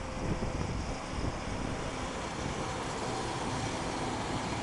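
Train approaching along the tracks, heard as a steady rumble and hiss that fills out slightly in the second half, with wind buffeting the microphone.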